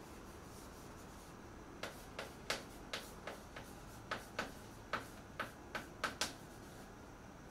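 Chalk tapping and scratching on a blackboard while words are written: a run of about a dozen sharp clicks, starting about two seconds in and stopping a little after six seconds.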